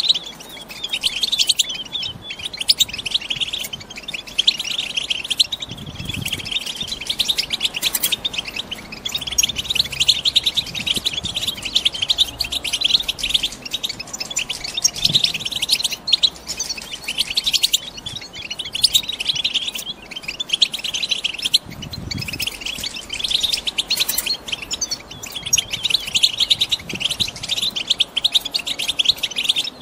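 Female European goldfinches chattering in a cage: an unbroken, rapid twitter of high, fast notes, the excited chatter of hens in breeding condition.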